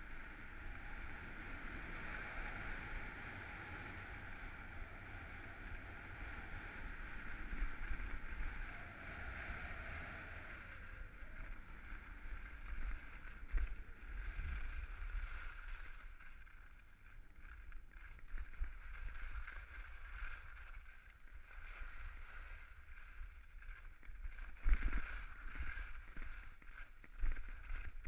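Skis sliding and scraping over packed snow at speed: a steady hiss that breaks up into separate scrapes in the second half, over a low rumble of wind on the microphone. A sharp knock about 25 seconds in is the loudest sound.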